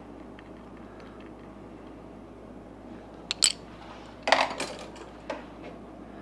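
Steel hand tools clinking and rattling in a metal toolbox drawer: two sharp clanks about three seconds in, a louder flurry about a second later, then one last clank.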